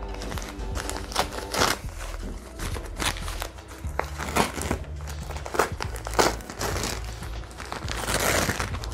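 Plastic packaging crinkling and rustling in irregular bursts as a plant is unwrapped.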